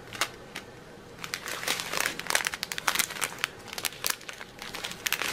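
Small clear plastic bags of diamond painting drills crinkling as they are handled, a stream of irregular crackles.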